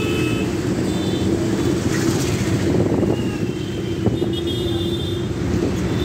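City bus engine running steadily under way, heard from inside the cabin, with road and traffic noise around it. A few brief high-pitched tones sound about a second in and again around the middle.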